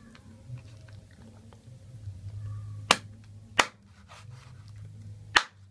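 Large kitchen knife chopping through raw chicken onto a wooden cutting board: three sharp chops, about three seconds in, half a second later, and near the end, over a steady low hum.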